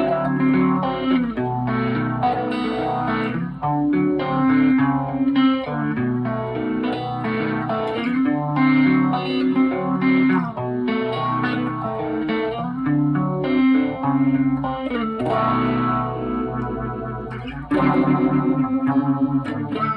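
Gretsch Super Axe electric guitar playing notes and chords through its built-in phaser, giving a swirling, slightly distorted tone. Near the end it changes to fast, repeated strumming.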